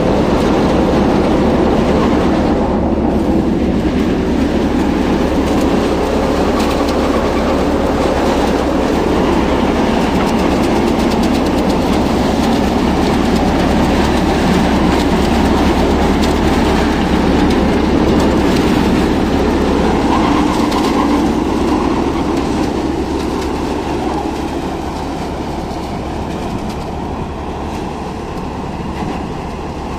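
A New Super Manku paddy thresher running under load while rice is threshed through it: a loud, steady mechanical rattle and whir of the drum and fan, with grain pouring out. It grows a little quieter over the last several seconds.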